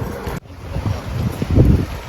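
Wind buffeting the microphone over a low, uneven rumble of sea or boat noise, with a sudden break about half a second in and a strong gust near the end.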